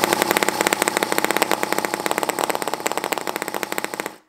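NR-200 miniature two-cylinder four-stroke gasoline engine spinning over, a loud, fast, even train of sharp pulses that stops abruptly near the end.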